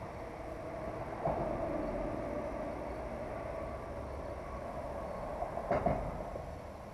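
Spinning reel being cranked through a retrieve, a steady whir, with a sharp click about a second in and another near the end.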